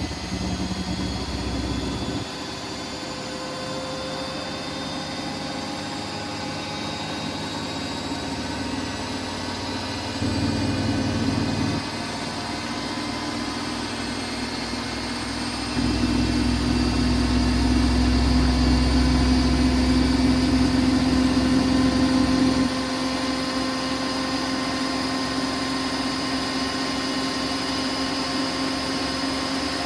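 Siemens Siwamat iQ washing machine running a wash cycle: a steady motor hum and whine as the drum turns, swelling louder in stretches, briefly just after a third of the way in and for several seconds past the middle.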